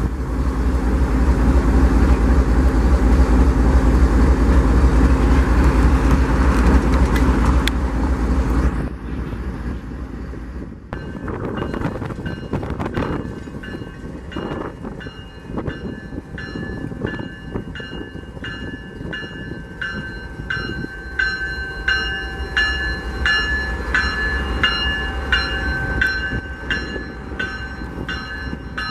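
Union Pacific diesel locomotives close by: a loud low engine rumble for about nine seconds, then it drops and the train rolls past more quietly, with high ringing tones and regular clicks about twice a second.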